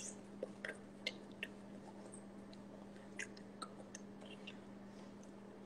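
Faint wet mouth clicks and lip smacks, about a dozen scattered short ticks, from a person silently mouthing words, over a steady low electrical hum.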